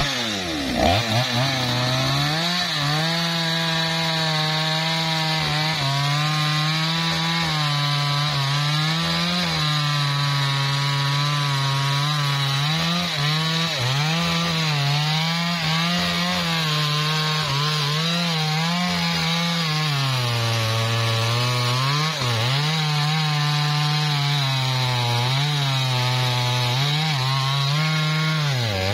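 A small two-stroke chainsaw cuts into the trunk of a large sengon (albizia) tree near its base. The engine revs up at the start, then runs at high speed throughout, its pitch sagging and recovering as the chain bogs under load in the wood.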